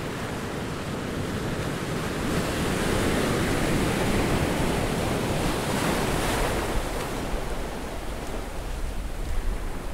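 Ocean surf washing onto a sandy beach: a steady rush of breaking waves that swells about two seconds in and eases off after the middle.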